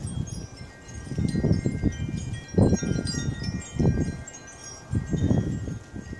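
Wind chimes tinkling, with many short high pings and a few notes that ring on. Under them come repeated short rustling bursts of snow as a rabbit digs, the loudest a little over halfway in.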